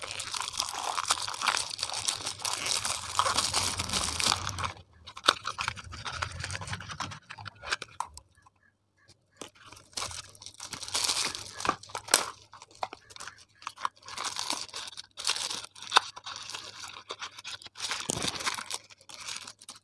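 Shiny metallic gift wrap crinkling, crunching and tearing as it is peeled off small gift boxes by hand. It comes in bursts with short pauses, with a near-silent stretch of a couple of seconds about halfway through.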